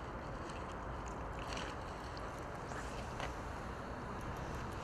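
Steady outdoor background noise with no clear single source, broken by a few faint clicks.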